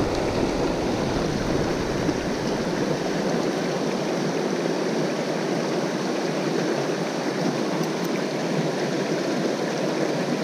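Small stream rushing over rocks in a shallow riffle: a steady, even rush of water.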